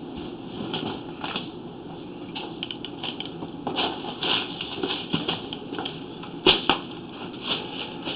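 Irregular clicking and scraping, several knocks a second with a sharper knock about six and a half seconds in, from a sewer inspection camera's push cable being fed along the cast-iron drain.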